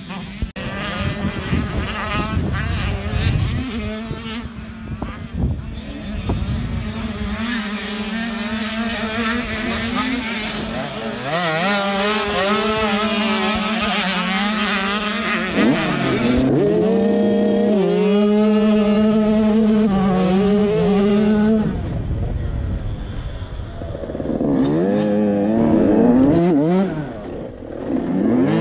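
85cc two-stroke motocross bike engine revving hard on the throttle, its pitch climbing and then dropping sharply again and again as the rider shifts gears and backs off.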